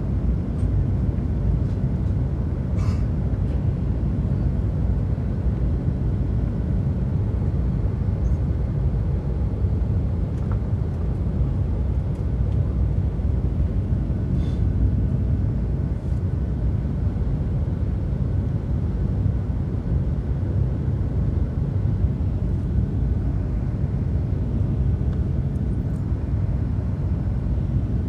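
Airliner cabin noise during the descent for landing: a steady low rumble from the aircraft in flight, heard from a window seat.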